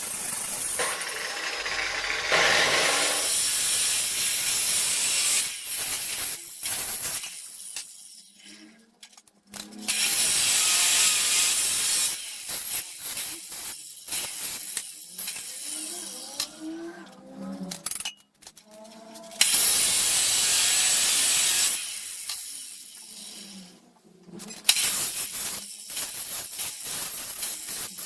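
A power tool working material in runs of a few seconds, with short pauses between, giving a loud hissing grind. A few brief squealing tones slide in pitch partway through.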